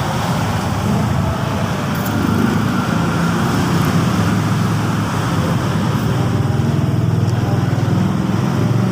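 Steady road traffic noise: a continuous low engine rumble with a wash of passing-vehicle noise.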